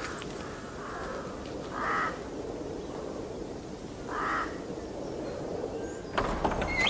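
A bird calling twice, harsh caws about two seconds apart, with a fainter call before them. A clatter of knocks comes near the end.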